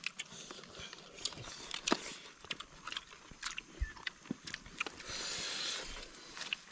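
Eating by hand off banana leaves: scattered small clicks, taps and rustles of hands and a knife on leaves and bamboo, with a short hiss about five seconds in.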